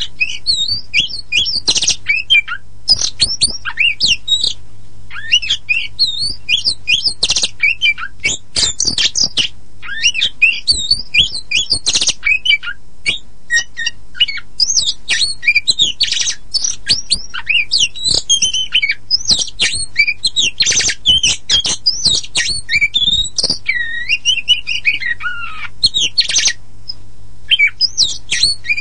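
Black-and-white oriental magpie-robin (kacer poci) singing a fast, varied song of quick whistled sweeps and twitters mixed with harsh scratchy notes, pausing briefly near the end. A steady low hum runs underneath.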